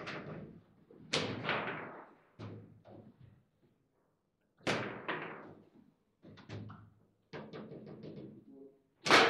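Table football play: the ball clacking sharply against the players' figures and the table, each hit ringing briefly, with short pauses between. A quick run of light taps comes near the end, then the loudest crack, a hard shot.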